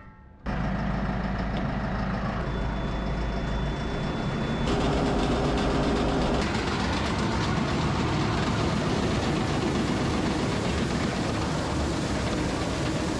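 Farm tractor running steadily under way: a constant engine rumble mixed with broad rattling noise. It comes in suddenly just after the start.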